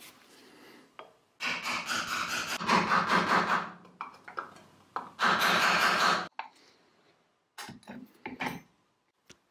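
Metal hand tools scraping and rasping on the aluminium housing of a 1934 Vorwerk Kobold vacuum cleaner. It comes in two long stretches, then a few short scrapes near the end as pliers grip the rim of the type plate.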